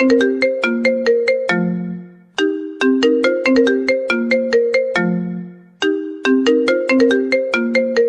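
Mobile phone ringtone: a short melody of quick, bright struck notes ending on a low held note, starting over about every three and a half seconds.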